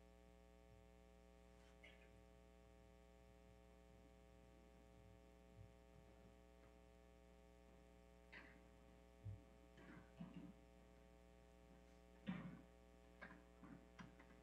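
Near silence with a steady electrical mains hum. From about eight seconds in come a few faint scattered knocks and rustles of people moving.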